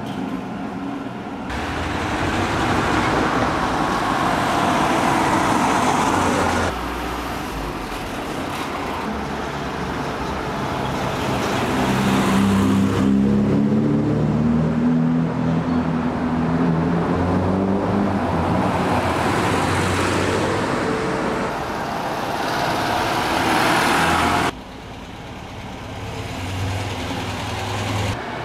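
Classic cars driving past one after another on a cobbled street, with engine and tyre noise. About halfway through, one car's engine note rises and then falls as it goes by. The sound changes abruptly several times.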